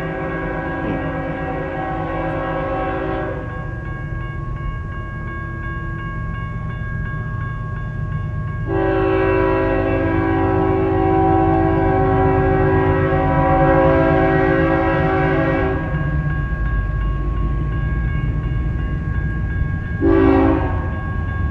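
Approaching BNSF freight locomotive's air horn sounding for the crossing: a long blast that ends about three seconds in, a second long blast from about nine to sixteen seconds in, and a short blast about twenty seconds in. Under it run the low rumble of the oncoming train and the crossing signal's steady ringing.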